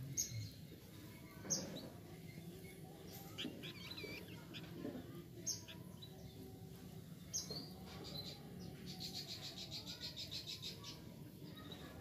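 Soft, faint chirps and short whistles from a caged pair of flamboyan (pelanduk semak, Horsfield's babbler), with a quick trill of about a dozen rapid high notes around nine seconds in.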